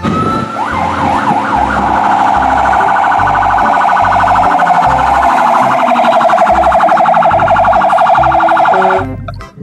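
Fire engine siren: a few short wails, then a fast electronic yelp that runs on until it cuts off suddenly near the end.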